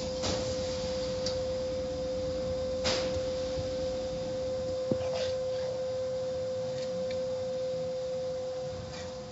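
Automatic car wash brushes spinning against the car, heard from inside the cabin: a low rumbling swish with a few slaps, the clearest about three and five seconds in. A steady high-pitched tone sounds over it throughout.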